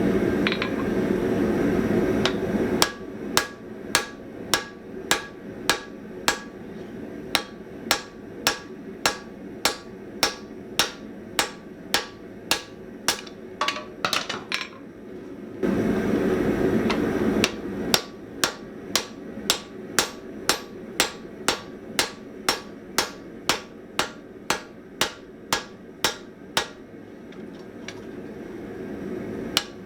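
Hand hammer striking hot spring steel on an anvil in a steady forging rhythm, about two blows a second, each with a short metallic ring. The hammering stops for a few seconds midway, when a steady rushing noise is heard, then resumes. The same noise is heard at the start.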